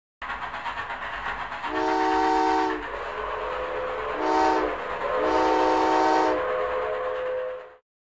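Steam locomotive sound effect: a fast, even chugging rhythm, then three steam-whistle blasts, long, short, long, with a lower tone holding on after them until the sound cuts off shortly before the end.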